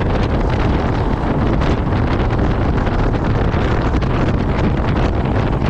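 Steady wind noise buffeting the microphone of a motorcycle riding at road speed, with the bike's running and road noise underneath.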